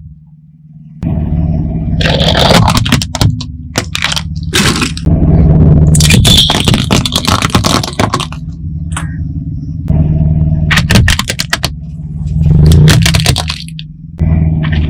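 A car tyre slowly rolling over and crushing brittle plastic objects, with repeated bouts of sharp cracking and crunching. Under it runs the low, steady hum of the car's idling engine.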